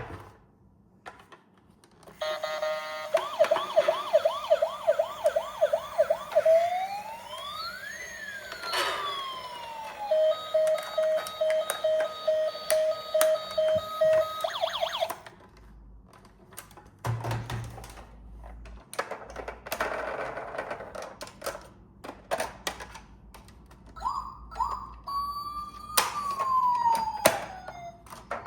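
Toy emergency vehicle's electronic siren: a fast warbling yelp, then one wail rising and falling, then a rapid steady beeping. A stretch of clicks follows, then near the end a shorter siren chirps twice and wails up and down.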